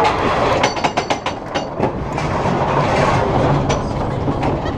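Mine-train roller coaster train on its lift hill: a steady low rumble of the cars on the track with a quick run of clacks in the first two seconds and a few single clacks later.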